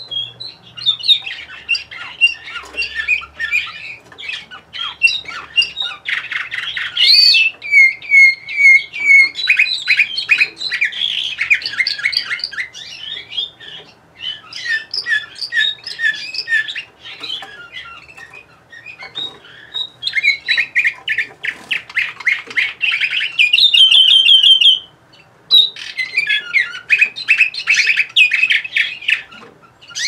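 Domestic canary singing a long, varied song of rapid trills and rolls, with a run of short, even notes about a third of the way in and a brief pause about five seconds before the end.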